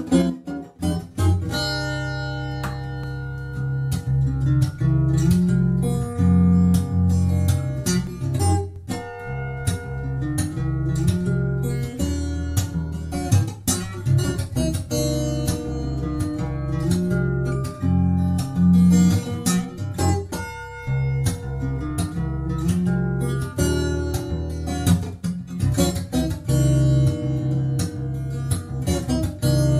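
Yamaha FS800 steel-string acoustic guitar played fingerstyle solo: a picked melody over a steady plucked bass line.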